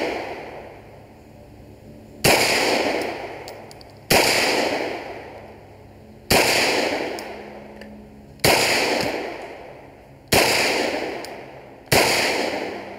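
Six pistol shots from a Tokarev converted to 9mm Luger, firing steel-cased Tula 9mm rounds. The shots come at a slow, even pace about two seconds apart, and each is followed by a long echo dying away.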